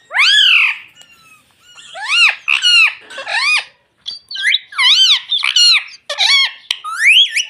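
Indian ring-necked parakeet calling: a rapid series of about nine short, high, squeaky calls, each rising and falling in pitch.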